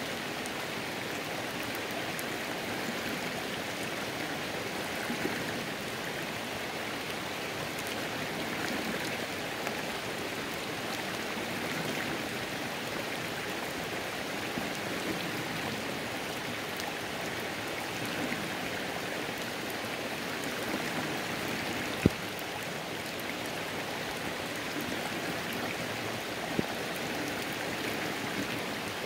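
Rain falling on a flowing creek: a steady, even rush of water with the patter of rain. A few sharp drip-like ticks stand out, the loudest about 22 seconds in and another about 26 seconds in.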